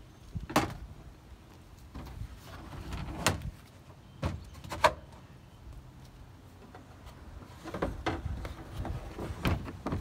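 Plastic resin shed's lid and doors being handled and shut: a series of separate knocks and clunks, sharpest about half a second in and again around three to five seconds in.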